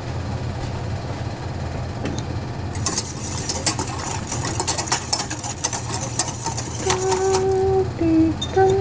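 Wire whisk stirring hot chocolate in a stainless steel saucepan, a fast run of ticks and scrapes against the pan for about four seconds, over a steady low hum. Near the end a woman hums a few sustained notes.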